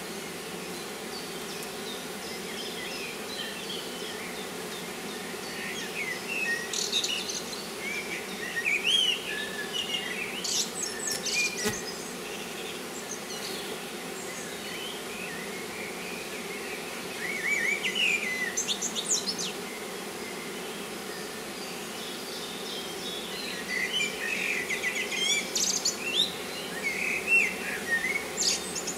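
Steady hum of a mass of honeybees around an opened hive, the bees crowding out onto the hive front. Birds sing in short bursts over it, in three spells: early on, in the middle and near the end.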